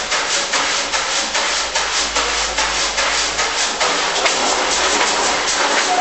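Dense, rhythmic rasping noise from a live experimental music performance, pulsing about five times a second.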